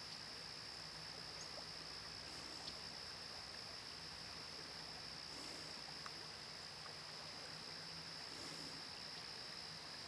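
Faint, steady rush of a river flowing over rocky shallows, with a continuous high-pitched ringing tone above it.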